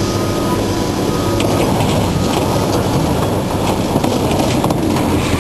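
Heavy diesel scrapyard machine running steadily, with crackling, creaking and crunching of sheet metal as the old production truck's body is torn apart, thicker from about a second and a half in.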